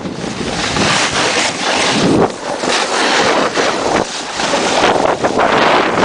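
Loud wind rushing over the microphone while skiing downhill, mixed with the hiss of skis sliding over tracked snow. The rush rises and falls unevenly, with brief dips about two and four seconds in.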